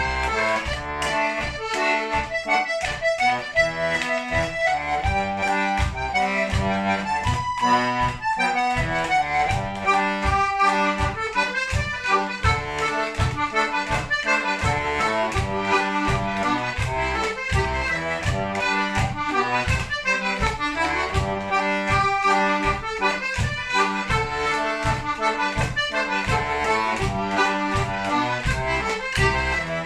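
Diatonic button accordion (melodeon) playing a traditional instrumental tune: a melody over a steady, evenly pulsing bass-and-chord accompaniment.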